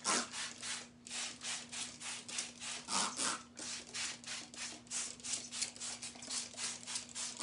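Rapid back-and-forth rubbing by hand, about four even strokes a second, with a faint steady hum underneath.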